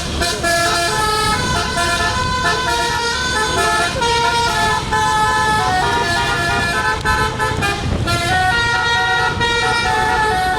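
Tour bus's telolet basuri multi-tone horn playing a tune without pause, the notes changing in quick steps with several tones sounding together, over low vehicle noise.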